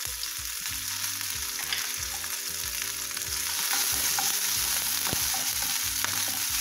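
Tempering frying in hot ghee in a nonstick pan, with mustard seeds, urad and chana dal, cashews and freshly added ginger and green chillies sizzling steadily. A spatula stirs and scrapes through them, with a few sharp clicks, and the sizzle grows louder about midway.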